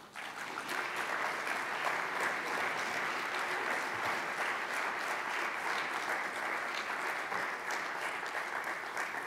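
Audience applauding: the clapping starts suddenly and holds steady.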